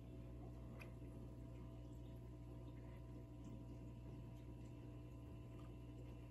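Near silence: a faint, steady, low electrical hum with a couple of soft ticks, about a second in and again near the middle.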